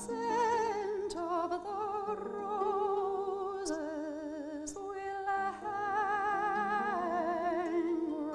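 A woman singing a slow ballad in a classical style with a wide vibrato, held notes moving from one pitch to the next, accompanied by a harp she plays herself.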